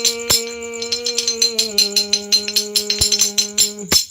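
A man's voice holds one long sung note of a Bhojpuri folk devotional song over a quick rattling beat like a shaker. Both stop just before the end.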